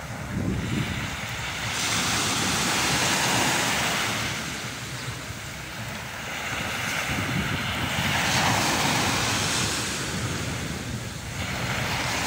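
Small sea waves breaking and washing onto a sandy beach, the surf hiss swelling and fading three times, with some wind rumbling on the microphone.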